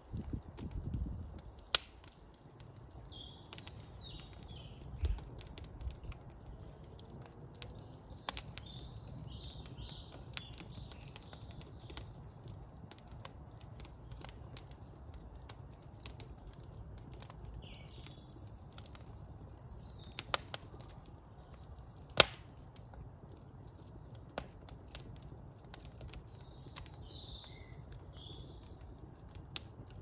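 Wood fire burning in a brick fireplace: scattered crackles and pops from the burning logs over a low steady background, with one sharp, loud pop about three-quarters of the way through.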